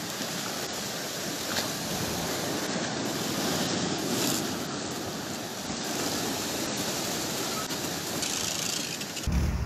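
Storm-driven sea surging over a harbour quay and jetties, with waves splashing and seawater rushing and pouring back off the quay edge like a waterfall. The sea is overflowing onto the shore in a gale, with a stronger surge about four seconds in.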